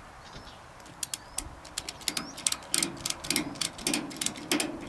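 Ratchet strap buckle being worked, its pawl clicking in quick runs. The clicks start about a second in and come faster and thicker from about halfway.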